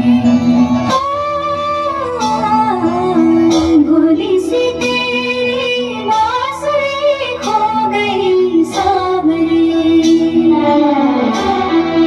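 Music: a Hindi song with a female voice singing over instrumental backing.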